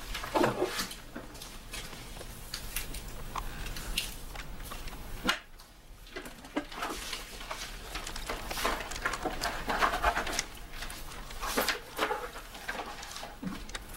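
Handling noises: rustling, small clicks and knocks as protective goggles are put on and long gloves are pulled on.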